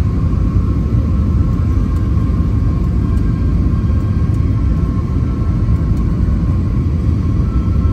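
Steady cabin rumble inside an Airbus A321-200 airliner on descent: engine and airflow noise with a faint steady whine running through it, a second, slightly higher whine joining near the end.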